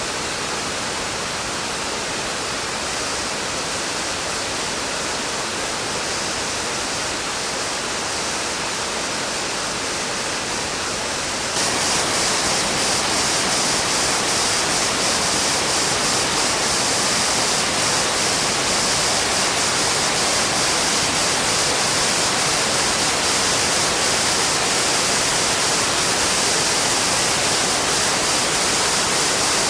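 Waterfall: a steady rush of falling water that becomes louder and brighter, with more hiss, about twelve seconds in.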